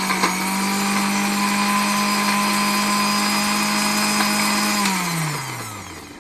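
Electric mixer grinder (mixie) running at full speed, blending sugar and oil in its stainless-steel jar. It is switched off about five seconds in, and the motor winds down with a falling pitch to a stop.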